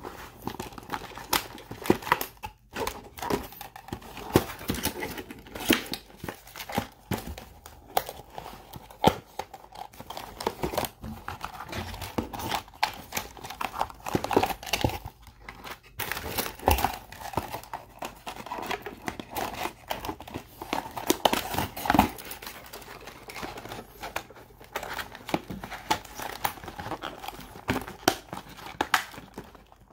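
Hands handling packaging and toy parts in a cardboard box: rustling and crinkling of plastic wrap and paper, with irregular small clicks and knocks as pieces are moved.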